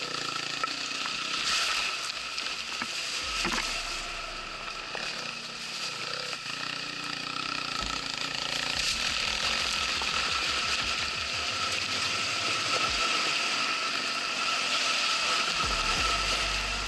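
Electric enduro bike riding off-road: a steady high electric-motor whine under constant rattling and clicking from the chain and running gear, a little louder in the second half.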